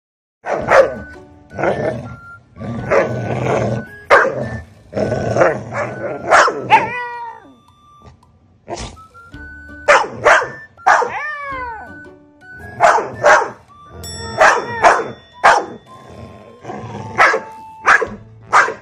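Dog barking in repeated short bursts, with a few drawn-out yowls that bend in pitch, over background music.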